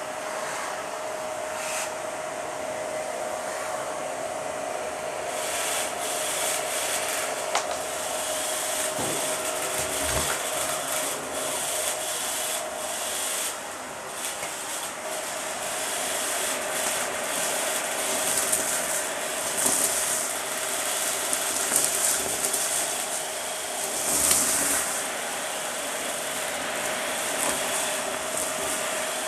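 Dyson vacuum cleaner running with its hose sucking up dry pasta, lint and small debris from a shag rug: a steady motor whine under a rushing hiss, with gritty crackling and rattling of bits going through the hose that picks up about five seconds in.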